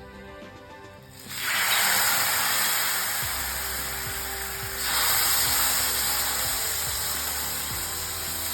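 Loud sizzling on a hot dosa griddle. It starts sharply about a second in, fades slowly, flares up again near five seconds and is dotted with faint crackles.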